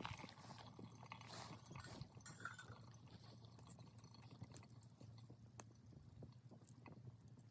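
Faint, scattered crackles and pops from a small wood fire burning in a Sierra stove, over a low steady hum.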